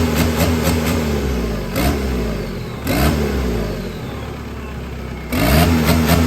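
Turbo TDI diesel engine in a Yamaha Rhino, fitted with compound turbochargers, being revved in blips. Its pitch rises sharply about two, three and five seconds in and sinks back toward idle in between.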